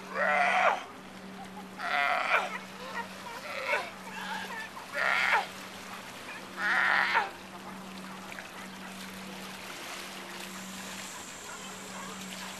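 California sea lions barking on the rocks: about five loud, hoarse calls of roughly half a second each in the first seven seconds, then only water lapping against the breakwater.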